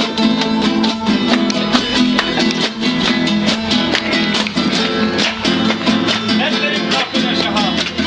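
Acoustic guitar strummed fast and rhythmically, played live.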